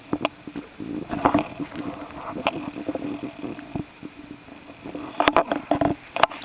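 A hooked bass thrashing at the surface of shallow water, making short separate splashes, with a louder burst of splashing and dripping about five seconds in as it is lifted from the water.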